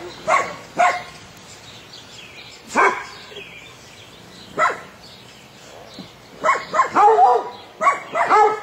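Dog barking: short single barks a second or two apart, then a quicker run of barks and yips near the end.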